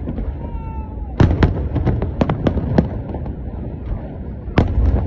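Fireworks exploding in a rapid string of sharp bangs, the loudest about a second in and again near the end.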